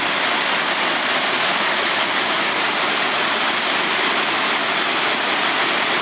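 Roar of a large glacier-fed waterfall in heavy flow, a steady, loud rush of falling water.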